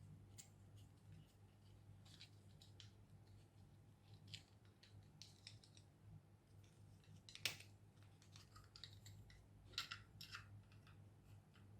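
Faint scattered clicks and taps of a 3D-printed plastic phone clamp being handled and adjusted, with one sharper click about halfway through and a few more near the end, over a low steady hum.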